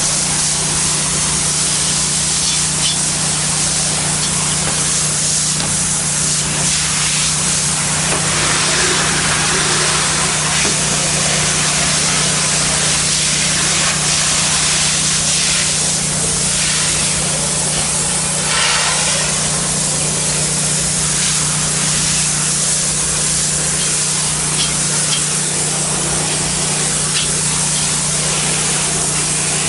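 Pressure washer spraying water at low pressure: a steady loud hiss of the spray with the machine's motor humming steadily underneath.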